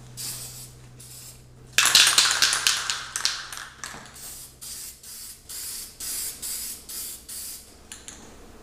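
Aerosol can of Brite Touch general-purpose primer spraying in bursts: one long spray of about a second and a half starting near two seconds in, then a run of short spritzes.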